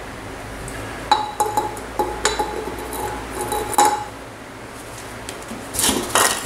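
Light metal-on-metal clinks, about seven over three seconds, each leaving a short ring at the same pitch, as a steel drift tube and loose metal parts knock about the motorcycle wheel hub after the bearings are driven out. Near the end, a louder scraping rustle as the wheel is turned over.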